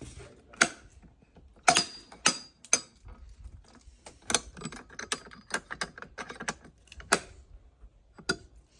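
Irregular sharp clicks and knocks, a few of them loud, with a quicker run of lighter clicks in the middle.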